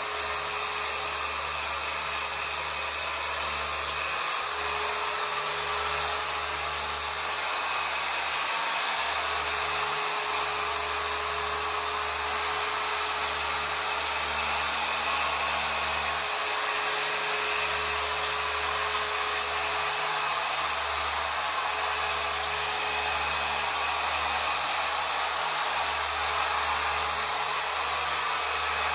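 Chicago Electric 6-inch dual-action orbital polisher running steadily, its pad scrubbing a pre-sprayed mattress's fabric.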